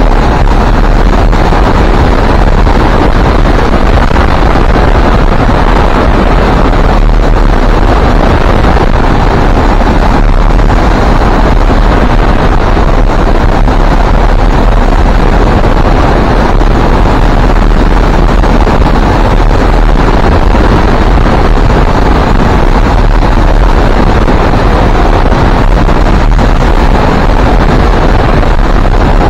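Loud, steady wind noise buffeting the camera's microphone, the rush of air past a hang glider in flight.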